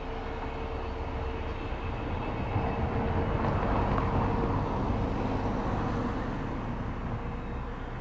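Passenger train rolling away on the track, a steady rumble of wheels on rails with a faint steady hum; the rumble swells a few seconds in and eases off near the end.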